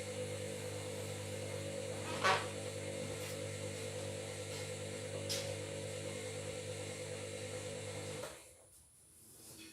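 Washing machine running with a steady mechanical hum, with a sharp click about two seconds in; the hum cuts off suddenly near the end.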